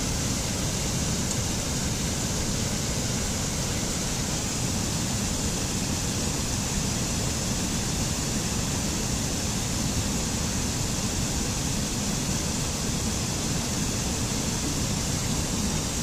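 Steady rush of a rocky mountain stream pouring over boulders and small cascades, an even wash of water noise that doesn't change.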